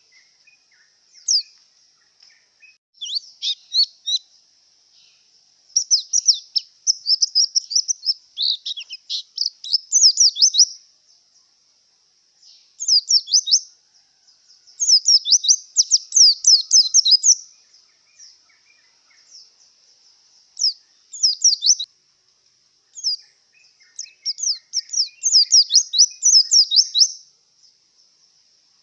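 White-eye (pleci) singing in bouts of rapid, high-pitched twittering notes, each bout one to three seconds long with short pauses between: the song of a bird in breeding condition.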